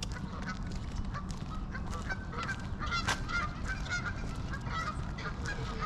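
Several geese honking: many short, repeated calls overlapping, sparse at first and coming thick and fast from about two seconds in.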